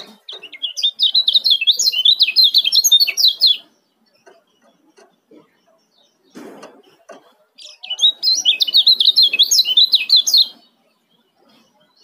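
A kecial kuning (Lombok white-eye) singing its fast, tightly packed 'ciak' chatter of high notes in two bouts of about three seconds each, with a pause of about four seconds between them.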